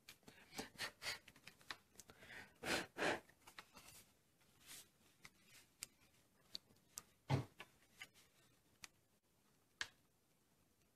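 Faint handling sounds of a paper postcard and a paintbrush on a tabletop: scattered small clicks and taps, with two short rustling swishes about three seconds in and a sharper knock a little after seven seconds.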